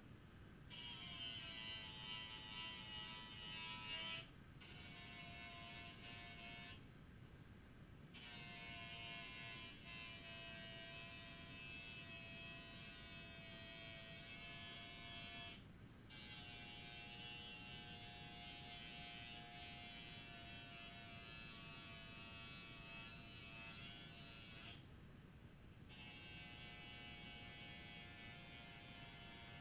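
Angle grinder with a thin cutoff disc grinding the cutting edge of a steel mower blade to sharpen it: a steady motor whine with a hiss of grinding on top. It stops briefly about five times and then starts again.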